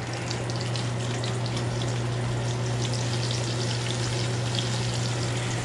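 Papio fish frying in hot grease: a steady sizzle with many small pops and crackles. A steady low hum runs underneath.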